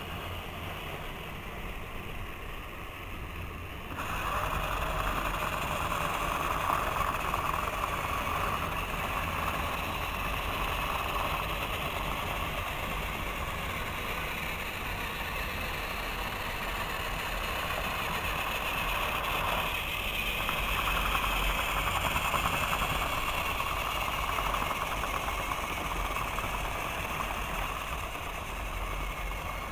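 Motorized toy trains running on plastic track: a steady whir of small electric motors and wheels, louder from about four seconds in.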